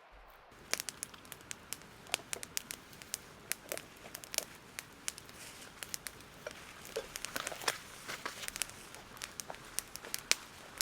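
Campfire crackling: irregular sharp pops and snaps of burning wood.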